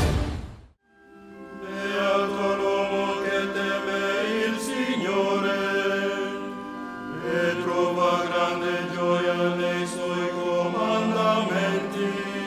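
A group of voices chanting a slow sacred chant in long held notes, with the chord shifting about five and again about seven seconds in. It starts after the last moment of a music sting cuts off and a short pause.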